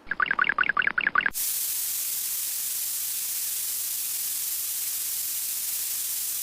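A rapid warbling chirp, about eight pulses a second, cuts off a little over a second in, and a steady hiss like white noise follows.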